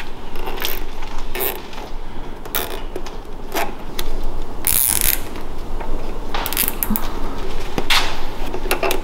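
Nylon zip ties being pulled tight around a hydraulic brake line, heard as a series of short ratcheting zips, with a longer pull about halfway through.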